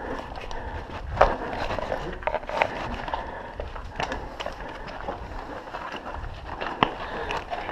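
Irregular knocks, clicks and scraping of mountain bikes and gear being handled on rock, with a few sharper knocks standing out.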